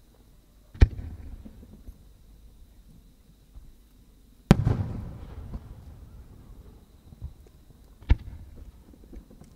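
Japanese aerial firework shells booming: three sharp reports about three and a half seconds apart. The middle one is the loudest and is followed by a long rumbling echo.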